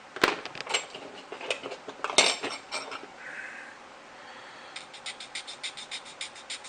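Small plastic model-kit parts clicking and tapping as they are handled and trimmed with a hobby knife. About three-quarters of the way in, this gives way to an even run of light ticks, about five a second.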